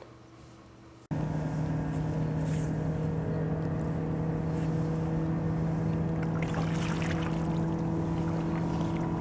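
A boat motor running at a steady speed: a constant low hum with even overtones that starts abruptly about a second in, after near silence.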